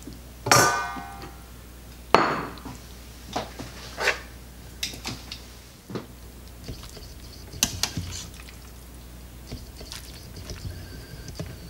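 Metal serving utensils clinking and scraping against a stainless steel Instant Pot inner pot and a ceramic plate as noodles are served. There is a sharp ringing clang about half a second in, another knock about two seconds in, then scattered lighter clicks.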